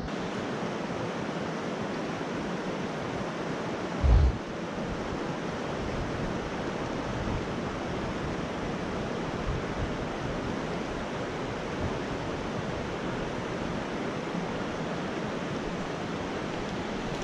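Mountain trout stream rushing over rocks in a steady, even wash, with one brief low thump about four seconds in.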